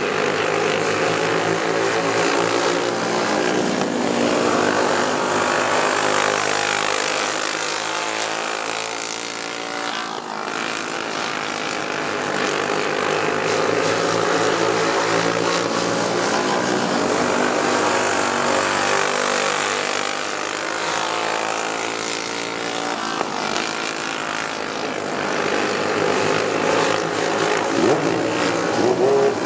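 Racing go-kart engines, Briggs & Stratton Animal single-cylinder four-strokes, running hard. Their pitch and loudness rise and fall in long swells every several seconds, dipping near the ten-second mark and again around twenty seconds in.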